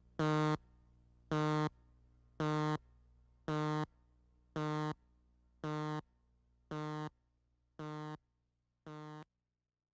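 Countdown beeps on a videotape leader: a short, buzzy electronic tone repeated about once a second, nine times, each a little quieter than the last.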